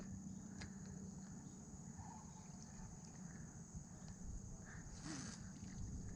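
Quiet outdoor ambience with a steady high-pitched insect drone, and a brief noise about five seconds in.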